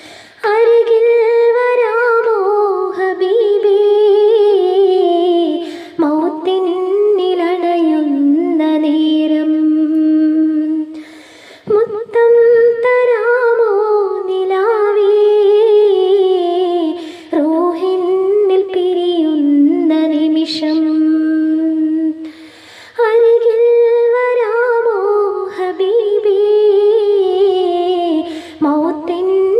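A woman singing a Malayalam madh devotional song unaccompanied, in long, ornamented phrases with held notes and short breath pauses between them.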